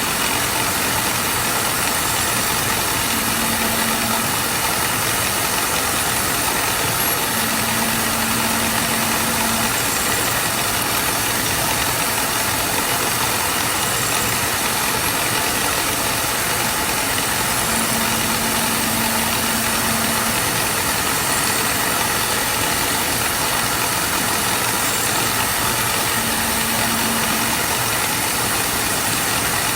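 Workshop machinery running steadily: a dense mechanical hiss and drone, with a low hum that comes and goes several times.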